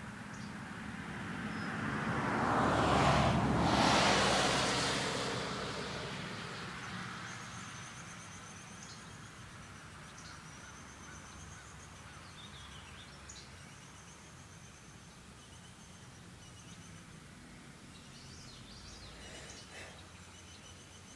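A passing vehicle's noise swells and fades over about five seconds, the loudest thing here. Afterwards faint, high, thin trills repeat in the background, with a few short chirps near the end.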